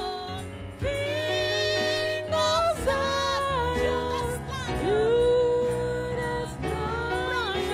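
A woman singing a slow worship song into a microphone over a steady instrumental backing, with vibrato on her held notes and one long held note past the middle.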